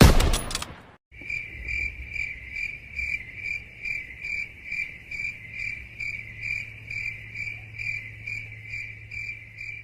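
The "crickets" meme sound effect: field crickets chirping in an even, steady rhythm of about three chirps a second, the stock cue for awkward silence. It is preceded by a loud hit that fades out within the first second.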